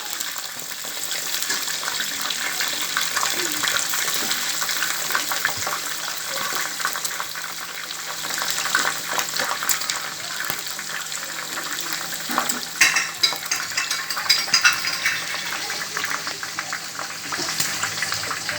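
Food sizzling in hot oil in a cooking pot: a steady crackling hiss with a few louder pops partway through.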